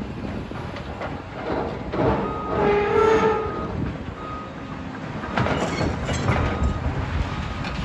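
Heavy demolition machinery working: a steady low rumble, a metallic squeal about two to three and a half seconds in, and a cluster of clattering knocks from about five and a half seconds.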